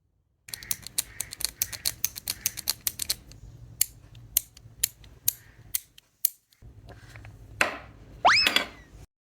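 3D-printed plastic fidget toy being worked by hand: a quick run of sharp clicks, then slower single clicks, and a short squeak rising in pitch near the end.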